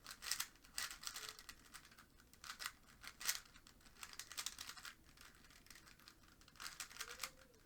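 A 3x3 Rubik's Cube being scrambled quickly by hand: a rapid, irregular run of plastic clicks and clacks as the layers are turned.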